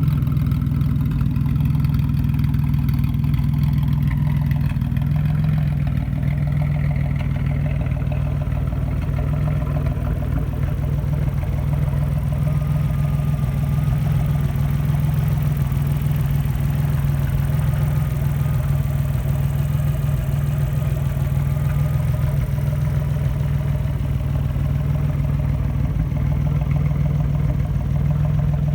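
Audi 2.8 V6 engine of a homemade trike running steadily at an even, unchanging speed, with no revving.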